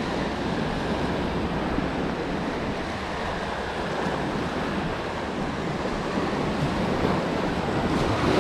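Ocean surf washing and breaking around the microphone, a steady rush that swells a little near the end, with wind buffeting the microphone.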